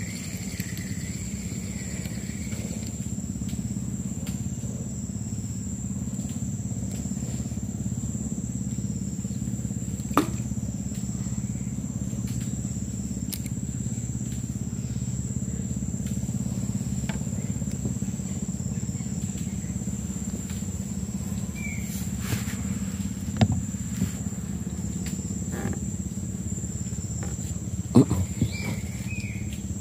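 Insects droning steadily at a high pitch over a steady low hum, with a few sharp knocks: one about ten seconds in and a couple near the end.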